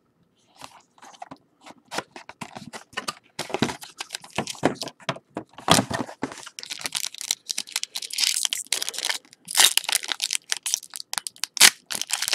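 Plastic wrapping on a box of baseball cards being torn and crinkled open: a run of crackling tears and rustles that gets louder and busier about halfway through.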